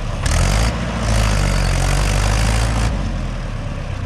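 Mahindra 585 DI XP Plus tractor's four-cylinder diesel engine running hard under load as it struggles up a loose sand slope. A louder rushing noise surges twice, briefly about a third of a second in and then from about a second in to nearly three seconds.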